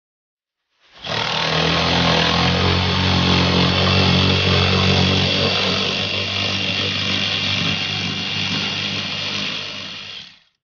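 Power tool motor running steadily, spinning a socket on an extension bar to undo a seat mounting bolt. It starts suddenly about a second in and cuts off near the end.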